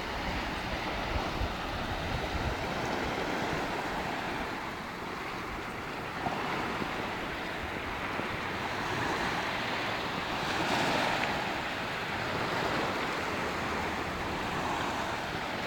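Small sea waves washing onto the beach, with wind rumbling on the phone's microphone. The wash swells louder about two-thirds of the way through.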